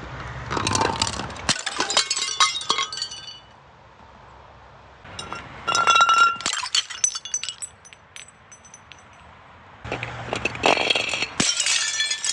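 Glass jars and bottles tumbling down concrete steps in three bursts of clinking and clattering, the glass ringing after some hits. Near the end a jar shatters and spills small plastic balls that bounce on the steps.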